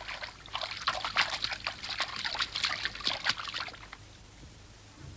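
Water splashing in a wooden bucket as hands scoop it up to wash a face: a quick run of irregular splashes and drips that stops about three-quarters of the way through.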